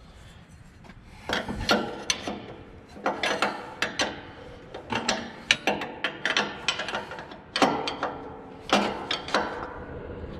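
A 7/8-inch wrench working a nut on a NOx sensor fitting: short, irregular runs of clicks and scrapes with brief pauses between them.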